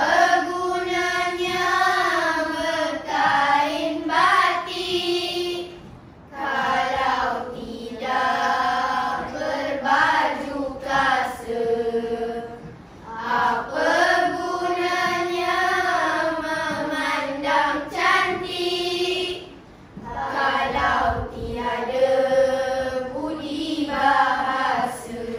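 A group of children singing together in unison, in four long phrases of about six seconds each with short breaks between them.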